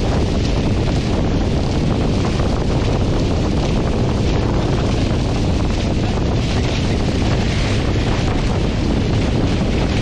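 Strong wind buffeting the microphone over the steady rush and hiss of water and spray off a Tornado catamaran's hulls, sailing at about 20 knots.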